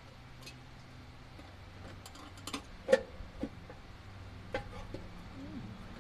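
Scattered light clicks and taps of parts being handled by hand under the hood of an engine. The loudest, sharp knock comes about halfway through. A steady low hum runs underneath.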